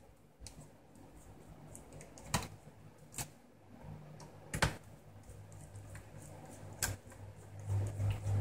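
A small Phillips screwdriver working screws out of a laptop's plastic top case: a handful of sharp clicks and taps a second or two apart. A low hum swells near the end.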